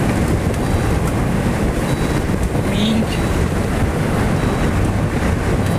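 Steady road and engine rumble of a moving car, with wind noise on the microphone.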